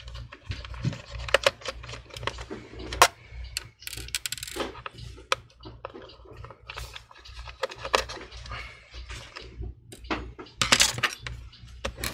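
Small screwdriver and tiny screws clicking and tapping against a laptop's plastic base as Torx T5 screws are taken out. Irregular sharp clicks with a couple of brief rubbing sounds, over a low steady hum.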